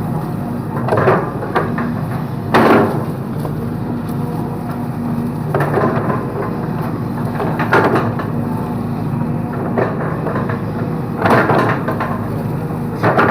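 Excavator working: its diesel engine runs steadily while about seven loud cracks and crashes come at irregular intervals as it breaks through bamboo, the biggest about 2.5 s in and near the end.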